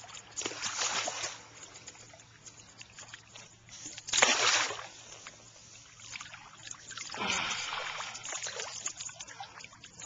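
A hooked fish splashing and thrashing at the surface of shallow water as it is played in on a fly rod, in several bursts, the loudest about four seconds in.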